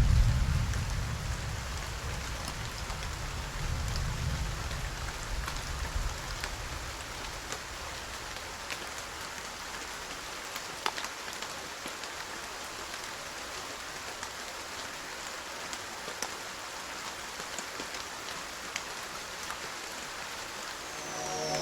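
Steady rain falling, with many separate drops ticking through the hiss. A low rumble fades away over the first few seconds.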